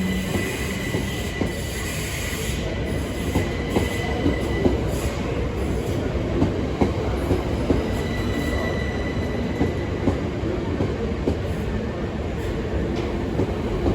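Class 377 Electrostar electric multiple unit pulling out along the platform, its wheels clicking over rail joints and points with a high-pitched wheel squeal that comes and goes.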